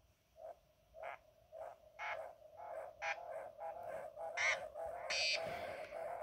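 Korg Monotron Delay analogue ribbon synthesizer played in random taps: short bleeps that echo through its delay and pile up, coming faster and louder into a continuous ringing tone, with two brief high squeals a little after the middle.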